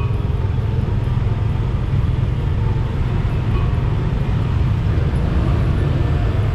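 Busy street traffic: a steady, loud low rumble of passing cars and motorbikes.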